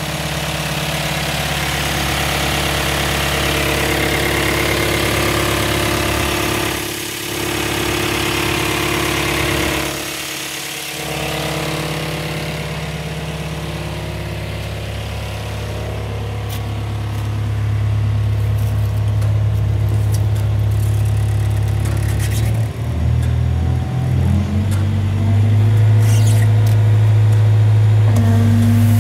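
Concrete pump running with a steady mechanical drone while it recirculates concrete through the hose line back into its own hopper. The drone changes pitch partway through and grows louder in the second half.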